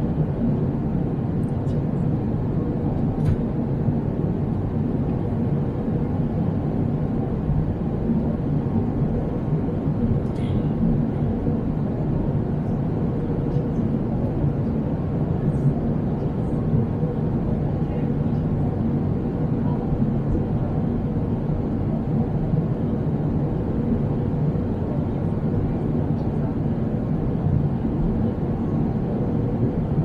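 Steady airliner cabin noise at cruise, heard from a window seat beside the wing-mounted turbofan: an even, mostly low rumble and hiss of engine and airflow, with a few faint clicks.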